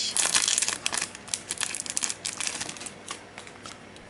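Clear plastic wrapping crinkling as a small stack of game cards is pulled out of it by hand: a quick run of crackles that thins out over the last second or so.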